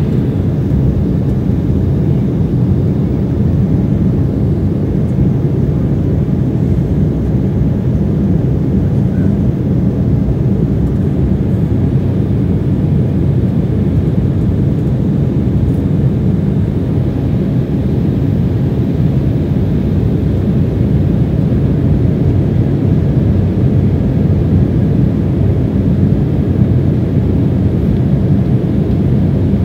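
Jet airliner cabin noise heard at a window seat: the engines and the rush of air over the fuselage make a steady low rumble that does not change.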